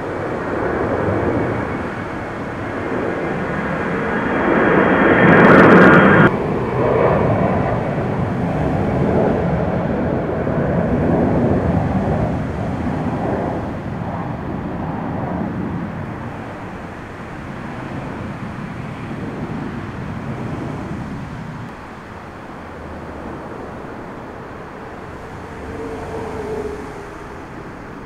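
Jet engines of an Airbus A320-family airliner at climb power passing overhead, a broad rumbling roar that builds to its loudest about five seconds in and cuts off abruptly about six seconds in. It is followed by a steadier, fainter jet rumble from airliners on the runway that slowly fades.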